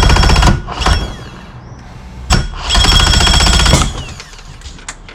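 A 2005 Mercury Optimax 115 two-stroke outboard being cranked by its electric starter in two bursts, a rapid even chatter with a high whine over it, without catching. Just before the second burst there is one sharp bang, a backfire that shows the engine is now getting spark and some fuel but still won't run.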